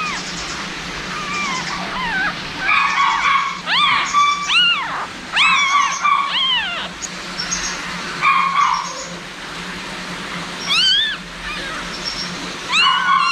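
Young puppy crying in short, high-pitched cries, each rising and falling in pitch, bunched in the middle with a few more near the end. They are distress cries as its dewclaw is tied off with thread for removal.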